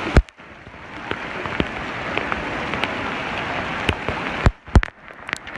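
Heavy rain falling, a steady hiss of rain with scattered sharp drop clicks. A few loud knocks stand out near the start and about four and a half seconds in, and the rain sound briefly drops away just after them.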